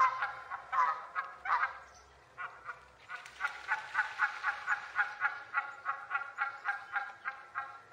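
Canada geese honking: a few loud, wavering honks, then after a short pause a rapid, even run of short honks, about three a second.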